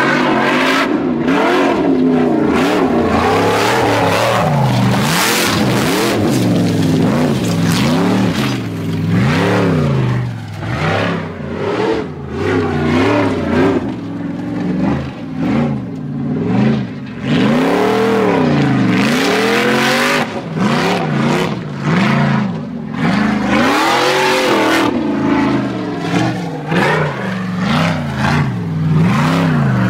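Formula offroad buggy's engine revving hard with its pitch sweeping up and down over and over as the throttle is worked on a steep dirt climb. It runs at full noise for the first few seconds, dips and surges through the middle, and holds loud again from about two thirds of the way in.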